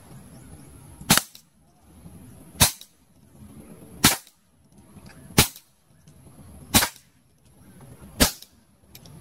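Six sharp shots from a CO2-powered steel-BB pistol, fired about one and a half seconds apart.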